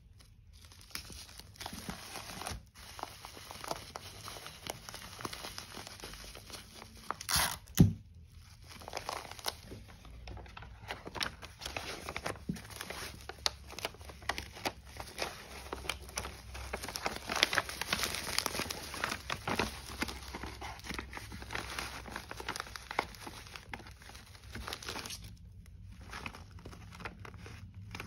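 Bubble wrap and a kraft paper mailer envelope crinkling and rustling as they are handled, with dense crackly clicks throughout. Two loud sharp snaps come about eight seconds in, and the handling quiets near the end.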